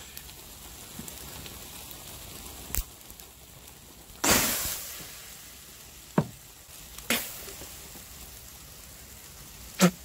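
A flaring charcoal fire in a grill bowl being put out: about four seconds in, a loud hiss that dies away over about a second as a white cloud of steam and ash rises off the coals. A few sharp knocks and clicks come before and after it.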